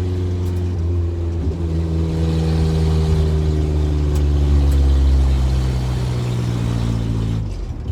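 1973 Ford Pinto's four-cylinder engine running at a steady pitch as the car drives. The pitch dips slightly about a second and a half in, and the engine note falls away near the end.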